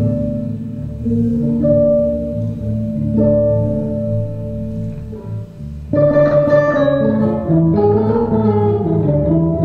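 Electric bass guitar playing a solo passage of held notes and chords. About six seconds in, the playing turns louder and busier, with brighter, quicker notes.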